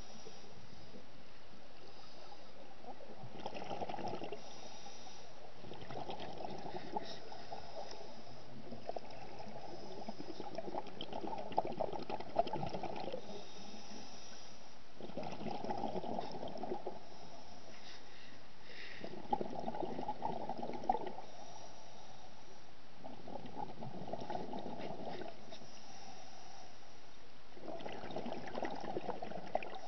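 Scuba diver breathing through a regulator underwater: exhaled air bubbles out in bursts of one to two seconds, roughly every four seconds, over a steady underwater hiss.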